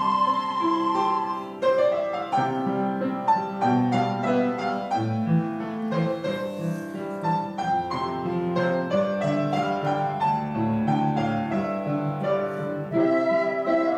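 An ensemble of children's recorders playing a melody over a piano accompaniment, the piano prominent in this passage.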